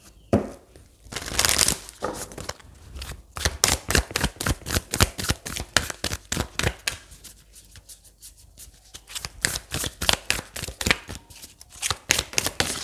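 A tarot deck being shuffled by hand: fast runs of card-edge flicks and clicks, in two spells with a short pause between them.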